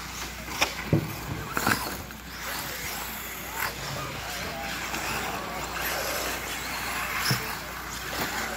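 Radio-controlled off-road buggies running on a dirt track, a steady mix of motor and tyre noise. Several sharp knocks from the cars landing and striking the track, a cluster in the first two seconds and one more near the end.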